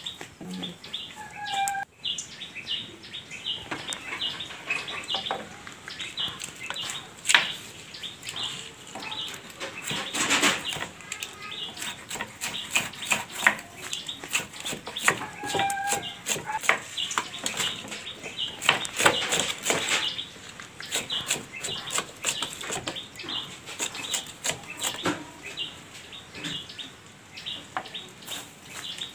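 Kitchen knife chopping winged beans on a wooden board: quick, irregular knocks of the blade against the wood.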